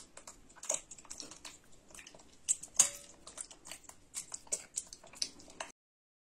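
A metal spoon clinking and scraping against a china bowl, with chewing, as a monkey eats porridge: irregular sharp taps, the loudest about three seconds in. The sound cuts off to silence near the end.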